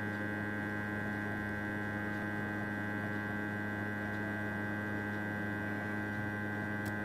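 Steady electrical hum with a buzzy stack of overtones, from a hot-air rework station blowing on a phone circuit board at low temperature to soften the glue left around the eMMC chip's pads.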